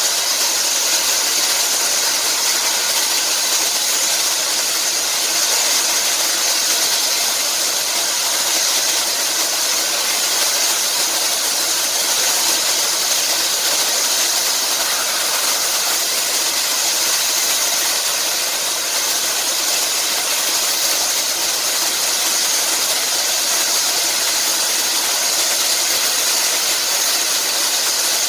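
Steam locomotive at a standstill, giving off a steady hiss of escaping steam.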